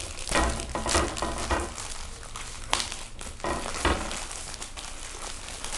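Plastic courier mailer bag crinkling and rustling in irregular bursts as hands handle it, with one sharp click nearly three seconds in.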